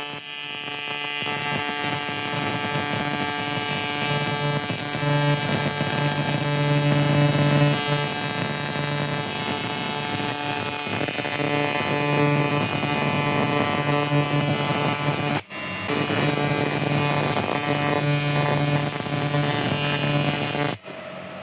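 Electric welding arc on cracked aluminum from a motorcycle fork's bottom knuckle: a steady electrical buzz that drops out for a moment about fifteen seconds in, restarts, and cuts off suddenly near the end.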